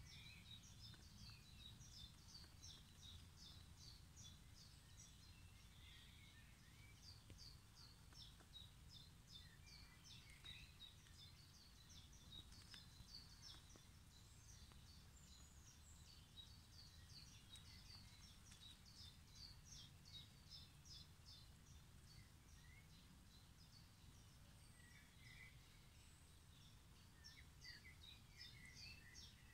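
Faint distant birdsong: quick, high chirps repeated over and over, over a low steady background rumble.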